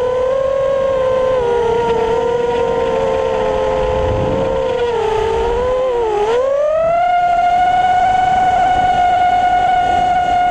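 FPV racing quadcopter's brushless motors and propellers whining, heard from its onboard camera. The steady whine dips briefly about six seconds in, then rises to a higher pitch and holds there as the quad speeds up on its run.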